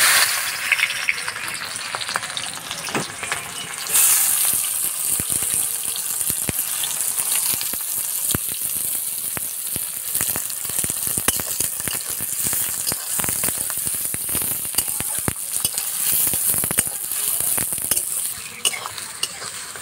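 Chopped onions sizzling as they fry in hot oil in a metal kadai. The sizzle turns much louder about four seconds in and eases near the end, with a metal spatula scraping and tapping against the pan as the onions are stirred.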